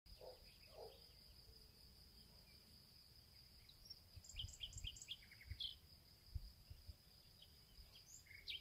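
Faint rural pasture ambience: a steady high-pitched insect drone throughout, with a quick series of small bird chirps a little past the middle and a few low wind rumbles.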